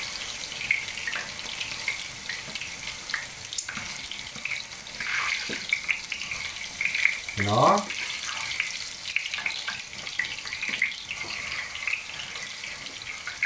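Grated raw potato rösti frying in plenty of hot oil in a pan: a steady sizzle with scattered small crackles and pops.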